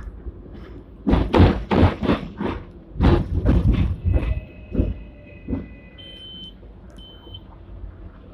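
Hong Kong double-decker electric tram running, heard from its lower deck: a quick series of knocks and clatters for a few seconds over a steady running rumble, then two short high-pitched tones near the end.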